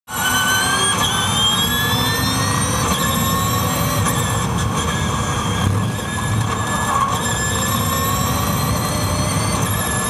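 Onboard sound of a first-season Formula E car (Spark-Renault SRT_01E) at racing speed: the electric drivetrain's high, layered whine climbs steadily in pitch and drops back sharply several times, over a rumble of tyres and road.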